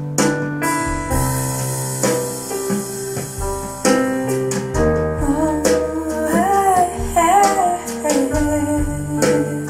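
Recorded music with piano notes and a singing voice, played back in a room over Bob Carver tube monoblock amplifiers, tower loudspeakers and a subwoofer; the voice comes in about five seconds in.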